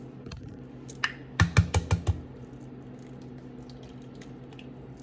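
Eggs being cracked against the rim of a mixing bowl: a quick cluster of about five sharp taps about a second and a half in, then faint scattered clicks of shell.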